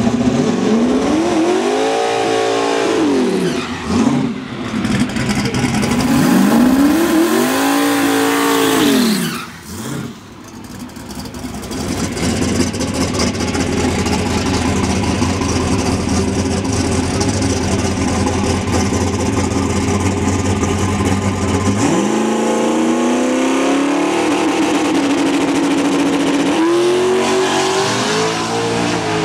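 A single-turbo Fox-body Ford Mustang drag car's engine revving loudly in two long rising-and-falling pulls. It then runs at high steady revs through a smoking burnout, climbs to a held pitch on the line and rises again near the end as the car launches.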